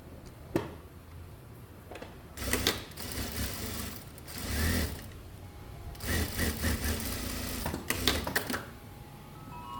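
Electric sewing machine stitching in two short runs of a few seconds each, with a brief pause between them, after a sharp click.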